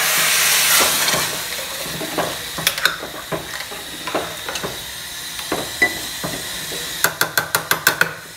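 Hot water poured from a steel pot into a steel pot of spiced rice on the stove, hissing as it hits the hot pan. Then a steel ladle stirs and clinks against the pot, with a quick run of about eight metallic taps near the end.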